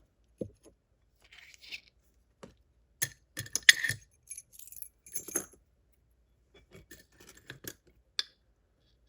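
Small metal clicks and clinks from a Ruko 600 padlock being taken apart with a shim and a follower, its parts tapping together, with a cluster of louder clinks about three to four seconds in.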